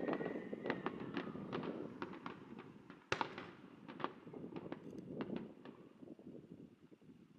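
Fireworks crackling and popping: a dense rattle of small bangs dies away, with one loud bang about three seconds in. After it the pops thin out and fade.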